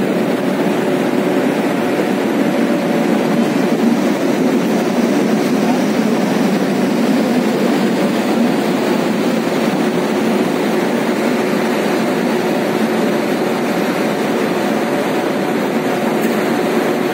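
Indian Railways WAP-7 electric locomotive creeping along the track with one wheel carried on a rail skate that slides on the rail, giving a steady, unbroken running noise of steel on rail.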